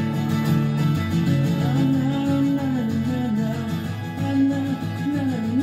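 Acoustic guitar strummed steadily, with a wordless sung vocal line over it that rises and falls from about two seconds in.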